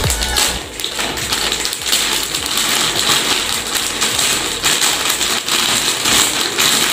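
Plastic bag of gummy candy crinkling and crackling as it is handled and torn open: a dense, continuous run of small crackles.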